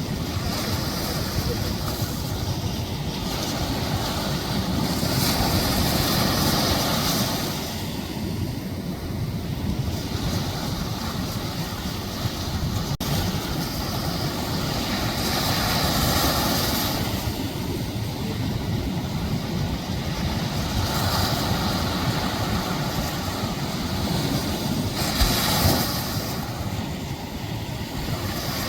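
Ocean surf breaking and washing up the beach, swelling every several seconds, with wind rumbling on the microphone.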